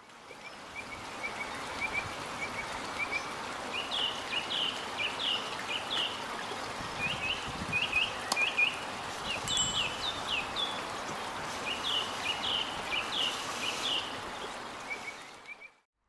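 Small songbird singing: quick groups of short repeated chirps over a steady hiss of running water. One sharp click about halfway through. The sound fades in at the start and fades out at the end.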